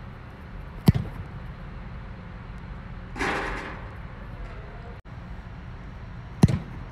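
Two kicks of an American football off a field-goal tee, each a sharp thump of foot on ball with a short echo in the fabric dome, about five and a half seconds apart. A brief rushing noise sits between them.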